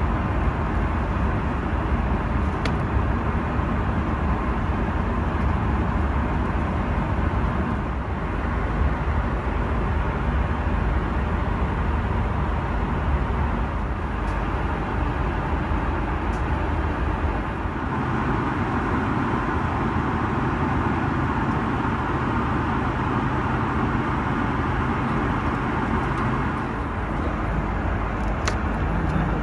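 Steady cabin noise of an Airbus A330-300 in flight: the even rush of airflow and engine drone heard from inside the cabin. About eighteen seconds in, the low rumble eases slightly.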